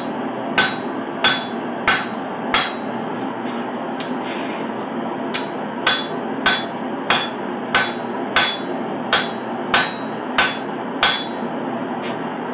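Hand hammer striking red-hot folded steel laid over a hardy hot-cut on the anvil, hot-cutting the bar, each blow a sharp ringing clang. About five blows, a pause of some three seconds, then nine more at roughly one and a half a second, over a steady background noise.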